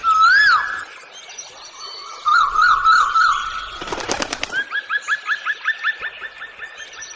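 Birds calling: a loud whistle that rises and falls, a few warbling notes, a short clattering burst about four seconds in, then a quick run of repeated rising notes, about four a second, that slow and fade.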